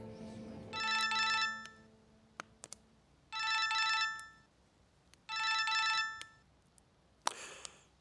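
Mobile phone ringing with a trilling electronic ringtone: three rings of about a second each, roughly two seconds apart. Background music fades out just before the first ring.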